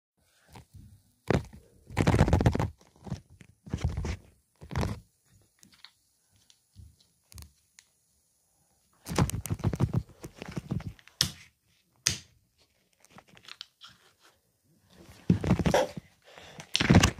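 Irregular bursts of thumps and knocks with rustling, loudest at the start, the middle and near the end, with quiet gaps between.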